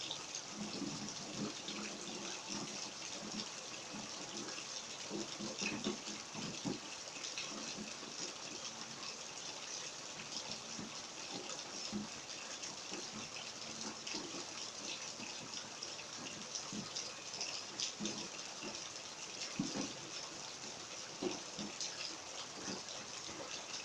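Steady rain falling, an even hiss, with scattered irregular low taps and splashes.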